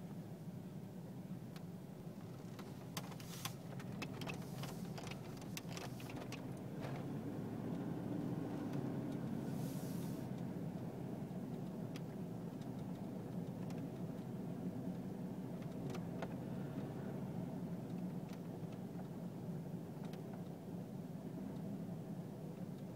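Steady car engine and road noise heard from inside a moving car, with a few sharp clicks or rattles between about three and seven seconds in and a brief hiss about ten seconds in.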